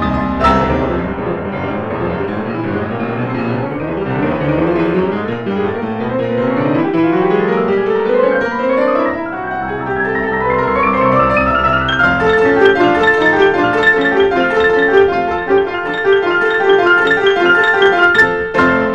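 Two pianos, one a Steinway grand, playing classical music together: fast runs climb steadily upward through the middle, then give way about twelve seconds in to repeated notes and chords in a quick even rhythm, with hard-struck chords near the end.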